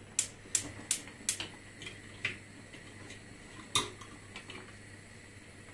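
A spoon knocking against a small pan of butter and chopped onion: a run of sharp clicks, four evenly spaced at first, then fainter taps and one loud knock a little before the four-second mark.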